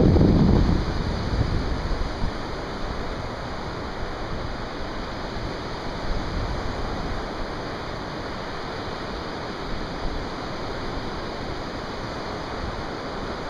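Steady hiss of surf washing onto a sandy beach. A louder low rumble of wind on the microphone fades out in the first second or two.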